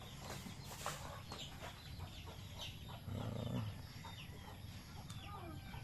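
Faint farmyard background of chickens clucking, with small birds chirping in many short, quick high notes. A louder, lower call stands out a little after three seconds in.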